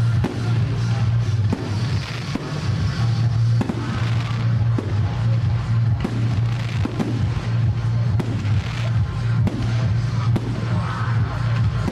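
Aerial firework shells bursting in a rapid run of bangs, several a second, over music.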